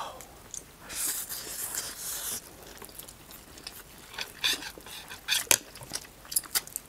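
People slurping up Chapagetti instant noodles and chewing with open, wet mouth sounds. A long airy slurp comes about a second in, and a quick run of smacks and clicks follows in the second half.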